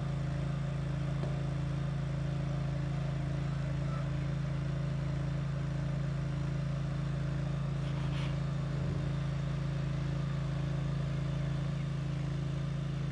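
Small engine of a ride-on, lawnmower-like machine running steadily at a constant speed, a steady low hum. One short click about eight seconds in.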